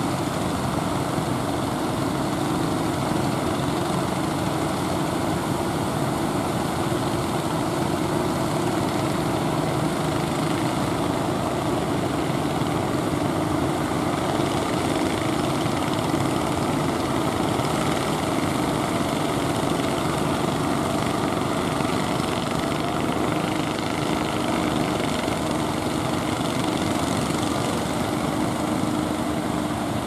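Engines of motorised wooden fishing boats running steadily under way, a constant drone with a low steady hum through it.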